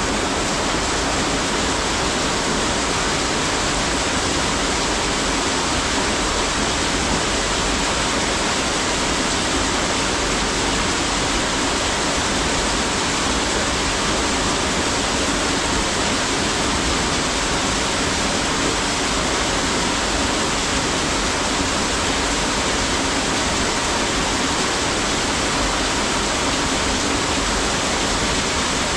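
A steady, even rushing noise that does not change, like flowing water.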